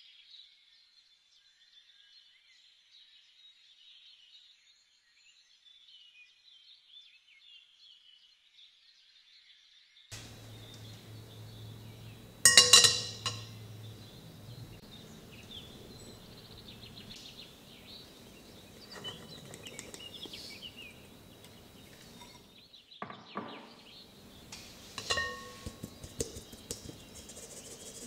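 Faint high chirping at first, then a single sharp, loud clink of kitchenware about halfway through, followed by a few lighter knocks and clinks of dishes.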